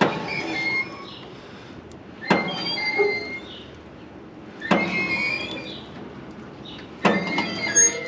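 John Deere L340 large square baler's knotter drive being turned over slowly by hand. It gives a sharp metallic clank about every two and a half seconds, four times, each followed by a rattle and a thin squeak of moving knotter parts.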